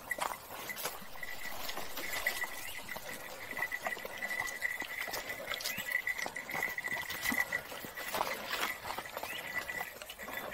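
Footsteps on a hiking trail, irregular clicks and scuffs, under a steady high-pitched drone that wavers in strength.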